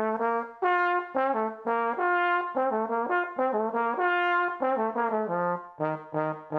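King 3B small-bore tenor trombone played solo through a Dennis Wick 5 mouthpiece: a phrase of short tongued notes moving up and down, then a lower note held from near the end.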